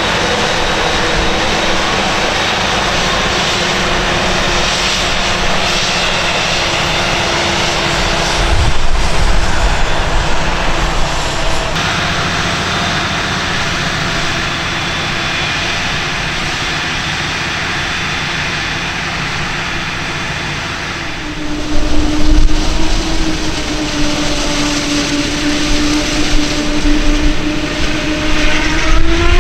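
Heavy diesel farm machinery running steadily with an engine whine, growing louder and rougher about a third of the way in and again about two-thirds in, and the engine pitch rising near the end.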